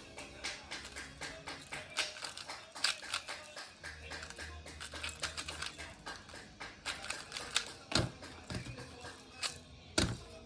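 A 3x3 speedcube being turned quickly by hand, its layers clicking several times a second in quick runs, with louder snaps about eight seconds in and again near the end.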